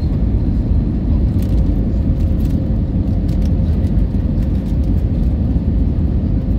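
Steady low rumble of jet airliner cabin noise from the engines and rushing air, with a faint steady hum above it.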